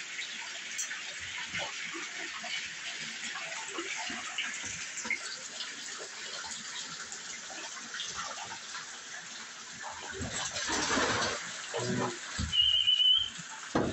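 Water running steadily into an alligator's indoor pool. About ten seconds in, the American alligator surges through the water with loud splashing, and there is a brief high squeak.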